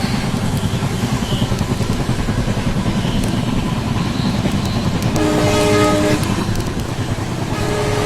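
WDP-4B diesel locomotive passing with a steady running rumble, sounding its horn once for about a second about five seconds in, then starting a second horn note of a different pitch near the end.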